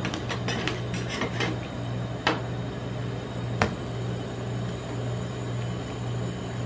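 Steady hum of an ice-cream-roll cold-plate machine, with sharp clicks of metal spatulas tapping on the steel plate: several in the first second and a half, then two single taps.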